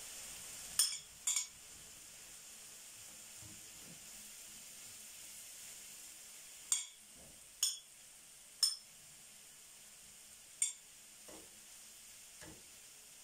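Half-cooked chopped liver sizzling in a frying pan as it is spooned in and stirred, with a metal spoon clinking sharply against the pan and plate six times.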